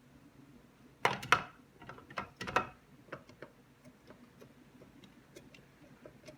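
Hard plastic parts of a Petlibro cat water fountain clicking and knocking together as a piece is fitted into place: a quick run of sharp clicks about a second in, another around two and a half seconds, then lighter ticks.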